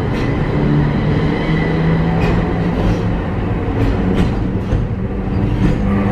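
Okayama Electric Tramway streetcar running, heard from on board: a steady rumble of wheels on rail with a low hum, and several sharp clicks scattered through it.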